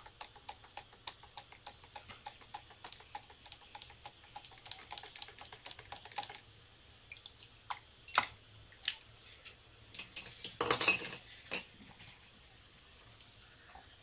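Watercolour brush working paint in the mixing well of a metal palette: a quick run of small ticks and scrapes for about six seconds, then a few separate louder clicks and a brief loud clatter about eleven seconds in.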